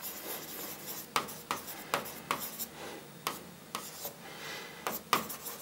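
Writing by hand on an interactive smart-board screen: a pen tip tapping and scratching against the surface in short, irregular strokes.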